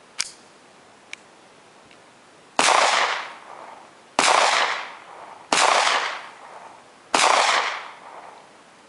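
Four gunshots, about one and a half seconds apart, each trailing off over about half a second. Two short clicks come before them, in the first second or so.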